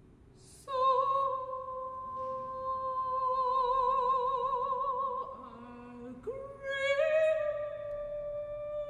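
Operatic soprano voice singing a long held note with vibrato that grows wider, preceded by a quick intake of breath. A brief lower tone follows past the middle, then she takes up and holds a second, slightly higher note.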